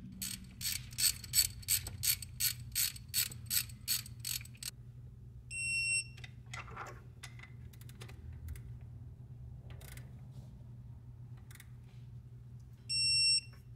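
Ratchet of a digital torque wrench clicking about three times a second as it runs a 10 mm pump-mounting bolt down. About six seconds in and again near the end comes a short high beep, the wrench's alert that the set torque of about 18 foot-pounds has been reached, with a few single ratchet clicks in between.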